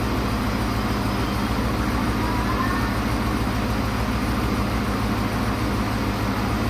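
Dodge 5.7-litre Hemi V8 with a stage 2 cam idling steadily on its first run after an engine swap, a deep, even pulsing idle.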